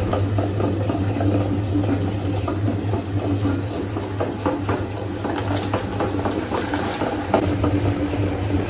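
Electric meat grinder motor running with a steady hum, with small crackles throughout as food is crushed through it.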